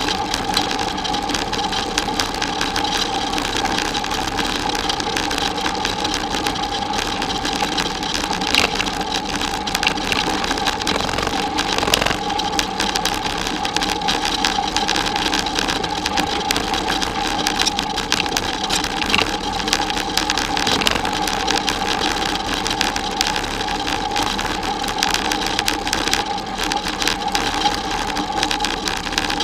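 Bicycle rolling along a gravel road: steady crunching of tyres on loose gravel with dense rattling and crackle, over a constant mechanical hum.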